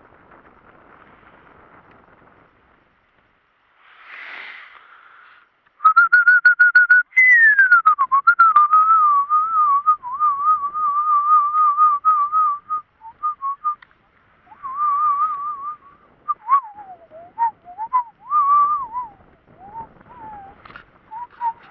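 A person whistling loudly, close to the microphone. The whistling starts about six seconds in with a held note and a falling slide, then a quick wavering trill, then a wandering, tune-like line that rises and falls in pitch. Before it there is only faint rustling.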